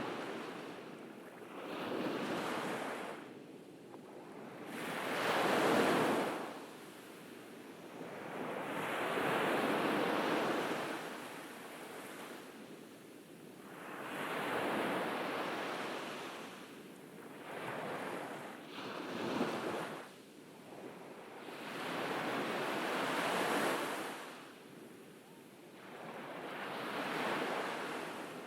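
Ocean waves breaking and washing up a beach, each swell rising and falling away every four or five seconds, with some wind on the microphone.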